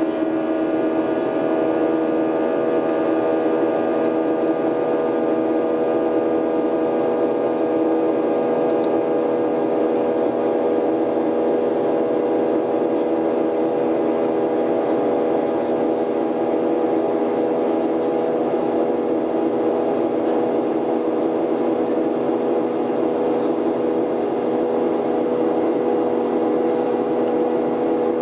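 Airliner's jet engines and airflow in flight, heard from inside the passenger cabin: a steady drone with several held humming tones that shift slightly in pitch partway through.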